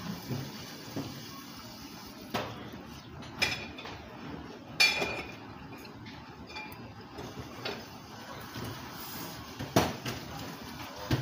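Chopsticks and ceramic tableware clinking now and then: about seven short, sharp clinks of dishes, the loudest about five seconds in with a brief ring, over steady room noise.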